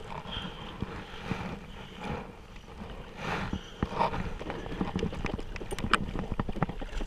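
Irregular knocks and taps on a plastic fishing kayak and its gear, over wind and water noise; the sharpest knock comes about six seconds in.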